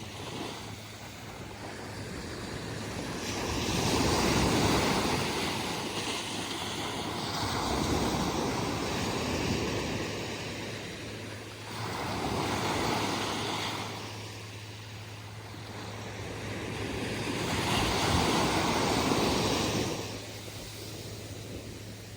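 Ocean surf breaking on a beach: waves wash in one after another in four swelling surges, each rising and falling away over a few seconds, the last one the loudest before it dies down near the end.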